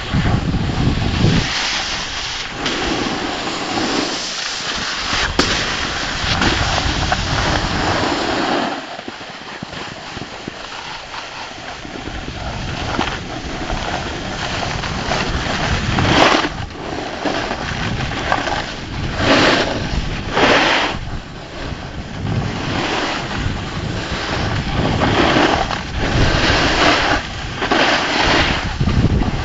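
Snowboard sliding and scraping over snow with wind buffeting the microphone: a continuous rough rush with low rumble, broken by several harsher scraping surges in the second half.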